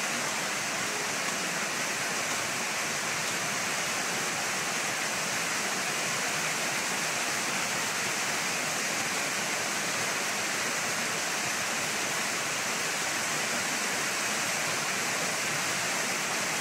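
Rain falling steadily, a dense even hiss with no breaks.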